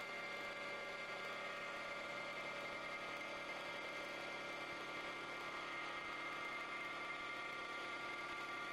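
CNC wood lathe turning a wooden baseball bat: the machine runs steadily with a few constant whining tones over the even noise of the cutter shaving the spinning blank.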